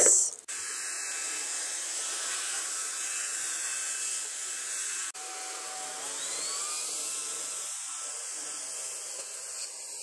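Corvan K9 Pro cordless stick vacuum running steadily, a high hissing whine of its motor and suction as it cleans. The sound cuts out for an instant about halfway, then carries on.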